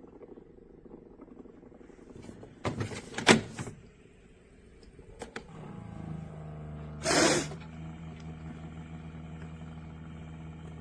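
Hamilton Beach FlexBrew Trio coffee maker brewing: a loud spurt of gurgling about three seconds in and a sharp hissing spurt about seven seconds in, over a steady low hum that starts about six seconds in.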